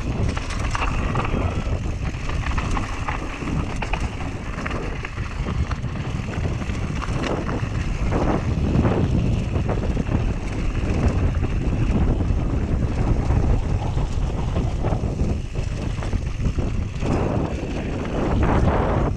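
Whyte G-170 mountain bike riding fast down a dirt singletrack: steady wind rush on the action camera's microphone, with tyres rolling over dirt and the bike rattling and knocking over bumps.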